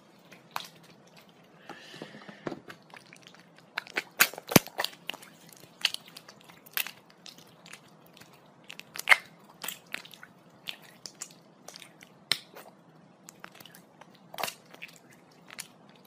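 Hands rubbing body lotion into skin: an irregular string of short clicks and smacks, with a brief rubbing hiss about two seconds in.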